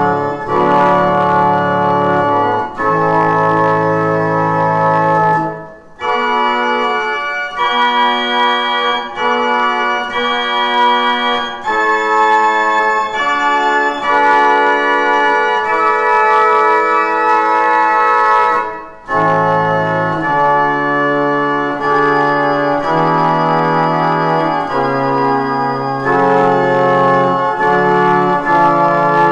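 Pipe organ playing a voluntary: sustained chords over a low pedal bass. The bass drops out about six seconds in, leaving a higher passage, and comes back in about nineteen seconds in.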